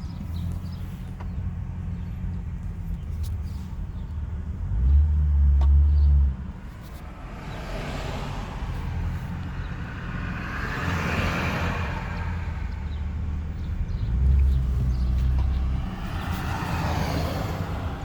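A car driving slowly, with steady engine and road rumble, louder for a second or two about five seconds in and again near fourteen seconds in. Other traffic passes with a hiss that swells and fades, twice.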